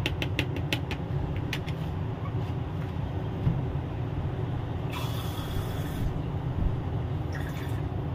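Plastic sachet of black grass-jelly (cincau) powder crinkling and clicking as the last powder is shaken into a bowl, several quick clicks in the first second, over a steady low hum. A hiss lasting about a second comes about five seconds in.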